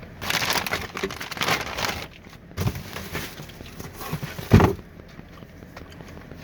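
Crinkling and rustling of packaging as a new fuel pump is handled, with one thump about four and a half seconds in.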